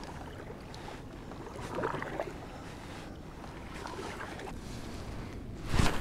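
Kayak paddle strokes in calm water, a few soft splashes around two seconds in. Near the end comes one loud, sharp knock, the paddle being set down against the plastic kayak hull.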